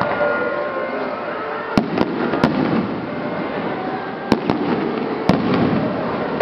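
Aerial fireworks bursting: about six sharp bangs at uneven intervals, the loudest about two and four seconds in, over a steady background noise.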